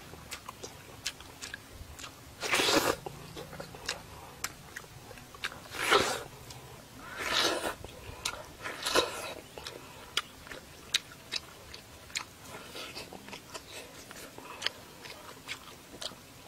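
Close-up eating of grilled fish: wet chewing and lip smacking with many small clicks, and a few louder slurps about 3, 6, 7.5 and 9 seconds in.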